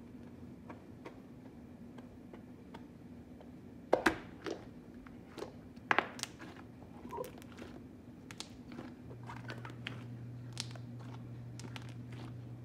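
Homemade slime being squished and kneaded by hand, giving scattered wet clicks and crackles, the loudest pops about four and six seconds in. A faint steady hum lies underneath, and a second low hum joins about nine seconds in.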